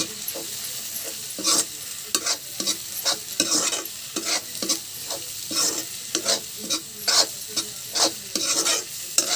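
Spatula stirring and scraping potatoes and onions frying in oil in a kadhai, about two or three strokes a second over a steady sizzle.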